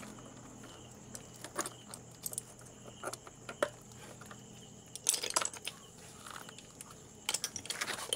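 Scattered sharp clinks and rattles of hard objects knocking together as a bucket of shells and the fishing gear around it are handled. The clinks come singly at first, then in two quick clusters, one about five seconds in and one near the end.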